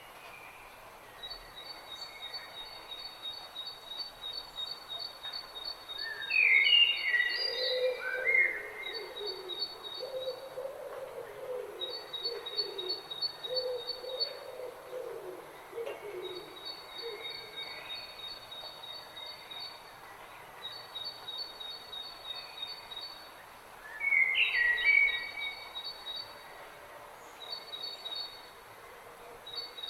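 Several woodland birds singing: one high, rapid trill repeats in phrases of a few seconds each, louder whistled phrases break in twice, and a low, wavering call sounds between about 7 and 16 seconds in.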